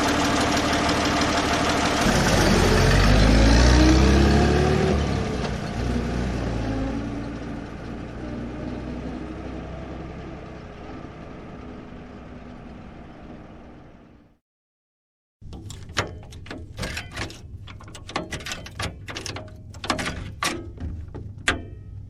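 Old car's engine running, revving up about two seconds in and easing back, then fading out over the next ten seconds. After a short gap, a run of irregular sharp clicks and knocks.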